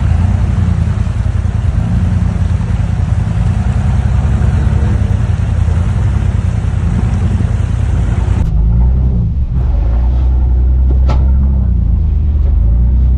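Vintage Willys Jeep flatbed truck's engine running under way, its pitch rising and falling with the throttle. About two-thirds through, a steady hiss cuts off suddenly and the low engine drone carries on.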